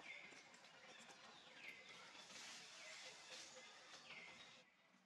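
Faint outdoor ambience: a steady high hiss with a short falling chirp that repeats about once a second. Both drop away sharply near the end.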